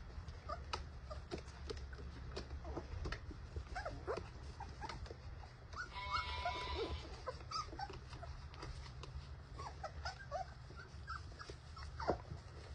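Several young goldendoodle puppies whimpering and squeaking in short, scattered high cries, louder for a moment about halfway through, with many light clicks as they move about in a plastic bath basin.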